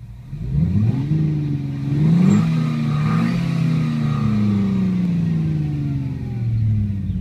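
Renault Clio engine sound revving up, climbing in pitch twice in quick succession within the first couple of seconds, then falling slowly and steadily as it eases off.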